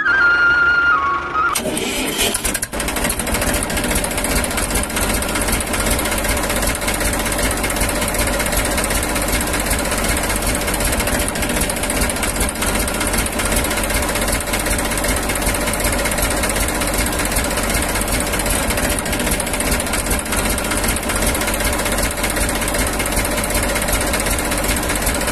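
A tractor engine starts up about a second and a half in, then runs steadily with an even, rapid chug.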